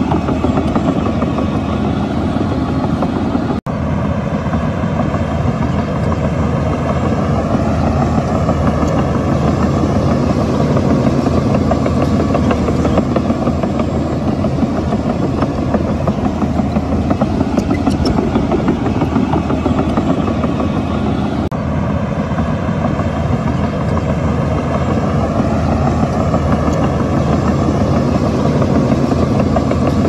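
Heavy diesel engines of earthmoving machinery running loudly and steadily, with the engine note rising and falling twice as a machine works under load. The sound cuts out briefly about four seconds in.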